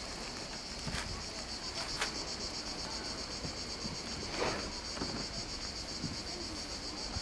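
Cicadas buzzing in a steady, high, even drone, with a few faint knocks and a brief rustle.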